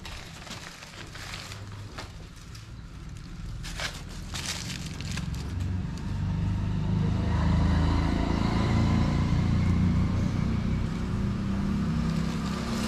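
Light rustling and crinkling of plastic wrapping with small clicks. Then, about six seconds in, a steady low rumble builds up and holds.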